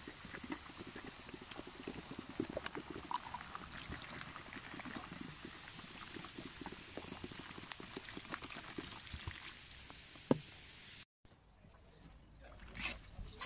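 Vinegar poured onto a bed of baking soda, fizzing and crackling as it foams up. It is a vinegar-and-soda bath for lifting rust off a steel sickle blade. The sound drops out briefly about eleven seconds in, and near the end there is sloshing as a hand moves the blade through the bubbling liquid.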